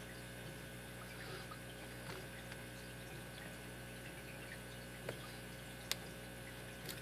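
Faint scraping and small clicks of a lock pick and tension wrench working the pins of a six-pin padlock, over a low steady hiss, with two sharper single clicks about five and six seconds in as pins set.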